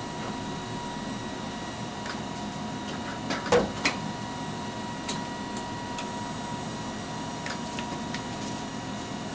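Ampex 2-inch quadruplex videotape machines running, a steady whir with a constant tone. A sharp double clack about three and a half seconds in and a few lighter clicks later, from the machines' controls being worked.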